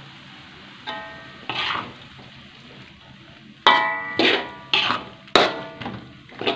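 Metal spatula scraping and knocking against a wok while stir-frying. Each knock rings briefly, and the knocks come quicker from about three and a half seconds in, over a low sizzle of the frying sauce.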